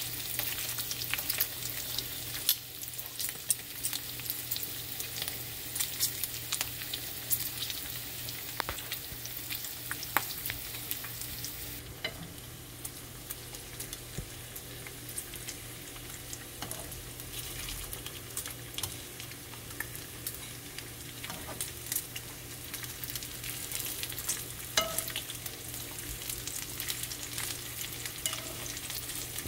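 Smoked bacon strips sizzling in a nonstick frying pan at medium heat, about halfway cooked, with a steady hiss full of small crackles and pops. The crackling is busier for the first dozen seconds, then settles, over a low steady hum.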